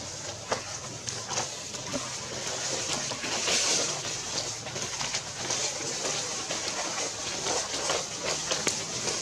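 Dry leaf litter crackling and rustling in many short, irregular clicks as macaques and the person following them move over it, under a steady high hiss.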